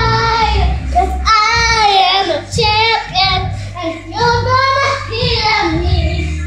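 A high singing voice with wavering held notes over music with a steady bass line.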